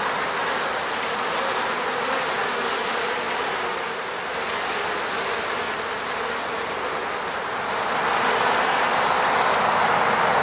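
Honeybees buzzing around their hive: a dense, steady hum of many wingbeats that grows a little louder near the end.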